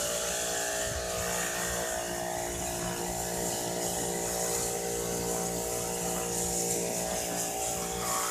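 Electric pressure washer running steadily: a motor hum under the hiss of the water jet, rinsing the cleaner off a motorcycle engine.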